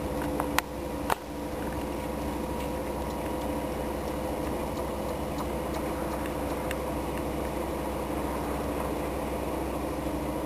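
SM42 diesel shunting locomotive's V8 diesel engine running steadily at a low, even speed with a constant hum. Two sharp clicks stand out about half a second and a second in.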